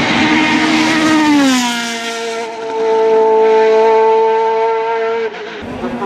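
Open-cockpit racing sports prototype's engine at high revs as it comes past. Its pitch falls about a second and a half in, then holds a steady high note until the sound cuts off suddenly near the end.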